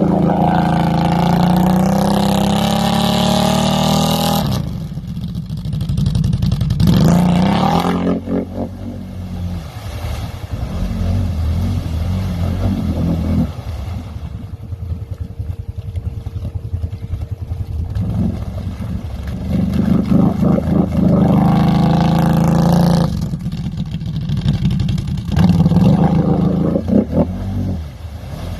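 Off-road vehicle engine revving hard in repeated bursts, dropping back to lower steady running between them.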